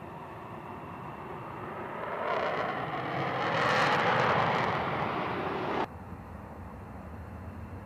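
F-15E Strike Eagle taking off on afterburner: jet noise swells from about two seconds in, is loudest around four seconds, then cuts off abruptly near six seconds. After the cut, a quieter steady jet rumble from a C-17 on the runway.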